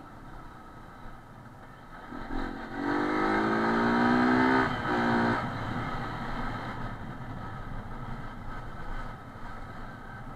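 Motorcycle engine accelerating, its note rising slowly for about three seconds with a brief break near the end of that stretch, then easing back to steady running over road noise, as picked up by an action camera's built-in microphone.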